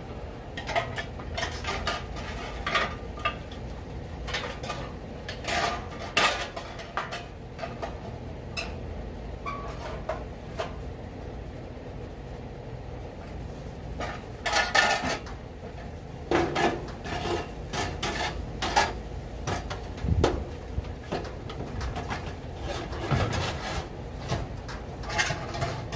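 Intermittent metal clanks, scrapes and rattles as the grill's metal drip tray is handled and slid back into the Cuisinart Twin Oaks pellet and gas grill, with louder clatters about six seconds in, around the middle, and near the end.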